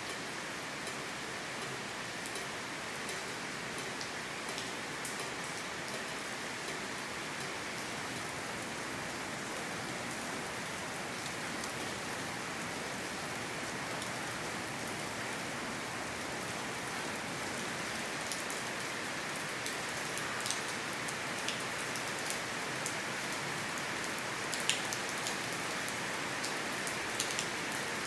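Steady rain pattering on the corrugated metal roof and walls of a covered railway platform and corridor, with scattered sharp ticks from drops that become more frequent in the second half.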